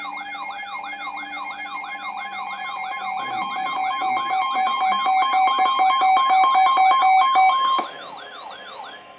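Electronic alert alarms sounding together, of the kind weather radios give on an alert: a fast wailing siren tone that rises and falls about three times a second over steady beeping tones, with a quicker pulsed tone joining partway through. The steady and pulsed tones cut off near the end, while the wail carries on a moment longer.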